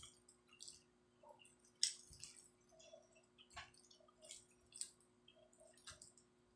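Wooden spoon scraping and knocking against the inside of a clay pot as rice is dug out: a series of faint short scrapes and clicks, the loudest about two seconds in.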